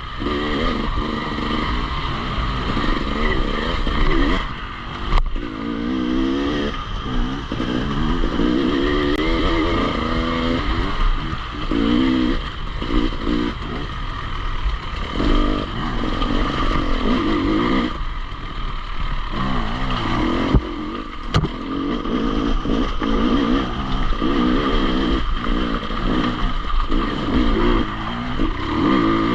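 Enduro motorcycle engine running under changing throttle, its pitch rising and falling again and again as it is revved and ridden, with occasional clatter.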